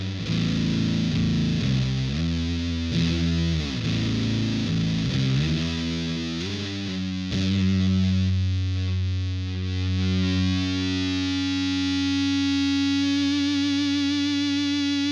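Electric guitar played through the LARAN muff-style fuzz pedal, heavily distorted: a riff of changing chords, then about halfway through a single note struck and held, sustaining to the end.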